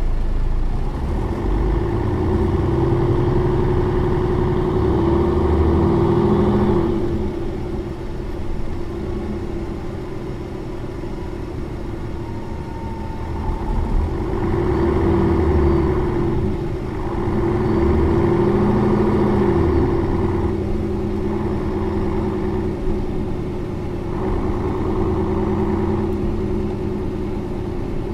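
Mercedes-Benz O405 N2 city bus engine running, its note swelling and easing off in several spells with a longer quieter stretch about a third of the way through.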